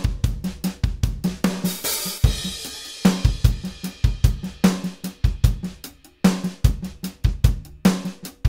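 Sampled acoustic drum kit (EZdrummer 3) playing a groove of kick, snare and hi-hat, with a cymbal crash washing out about two seconds in. It runs through the Kiive Audio Xtressor Nuke brick-wall limiter on the drum bus, which grabs the transients and gives the hits a snappy, clicky bite.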